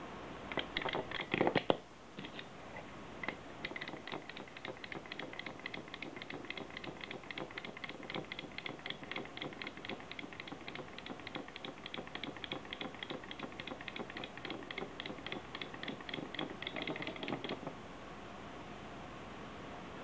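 Clockwork of a small wind-up toy horse with a rider, ticking rapidly and evenly at about five clicks a second as it walks, then stopping near the end. About a second in there is a short burst of louder clicking and rattling.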